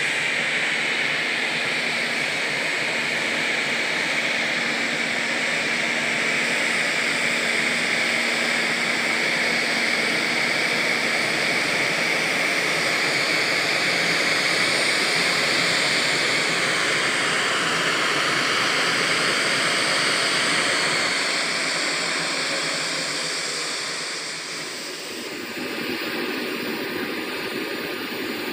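Boeing 737-800's CFM56 turbofan engines at taxi power: a steady jet whine over a loud rush of air. The sound dips about 25 seconds in and is quieter and lower from then on.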